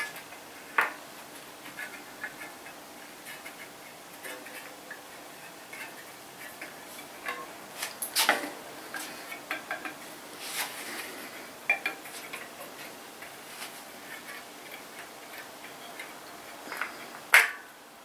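Irregular light metallic clicks and taps from hands working on a mountain bike wheel's spokes, as loose spokes are checked and tightened, with a sharper knock near the end.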